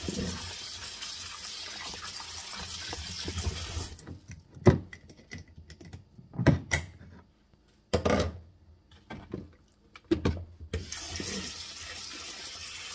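Kitchen tap running into a steel sink, which stops about four seconds in. Then come several knocks and clicks as a glass swing-top jar is handled and its wire clasp worked. The tap runs again near the end.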